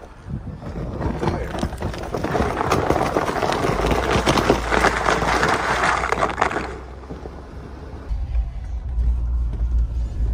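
Jeep Wrangler driving through snow: a loud crackling, crunching rush of tyres churning snow for about six seconds. It dies away, and near the end a steady low engine rumble is left.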